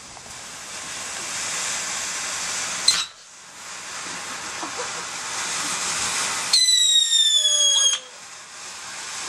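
Ground fountain firework hissing loudly and swelling, with a sharp crack about three seconds in. From about six and a half seconds a shrill firework whistle sounds for over a second, falling slightly in pitch, before the hissing picks up again.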